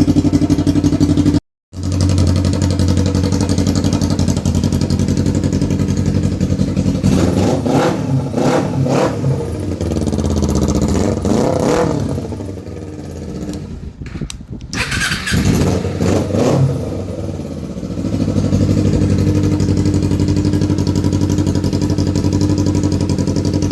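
Kawasaki EX250 parallel-twin engine running loud with its exhaust removed. It idles steadily, then is revved several times through the middle, its pitch sweeping up and down, before settling back to a steady idle.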